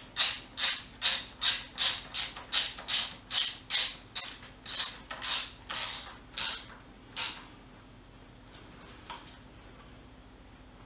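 Hand socket ratchet clicking as it is worked back and forth to tighten a fuel rail bolt, a steady rhythm of about two to three strokes a second that stops about seven seconds in.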